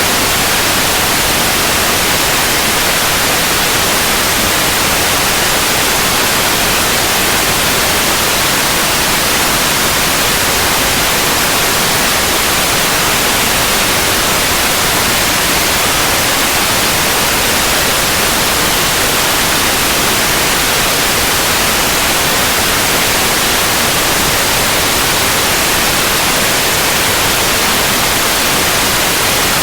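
Steady synthetic white noise, an even hiss across the whole range with no change or events.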